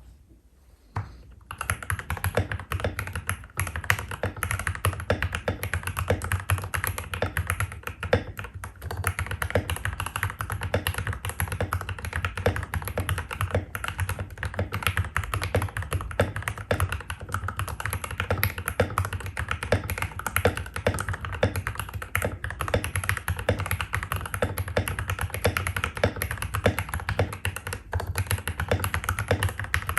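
Fast, continuous typing on stock Gateron Pro Yellow linear switches in a Royal Kludge RK68 with an aluminium plate, foam-modded, with OEM-profile PBT keycaps. It starts about a second and a half in, after a short near-quiet gap.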